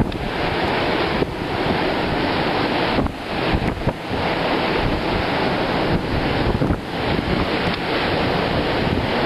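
Strong wind buffeting the microphone over the rush of a rough, whitecapped sea. The noise is uneven, easing briefly a few times.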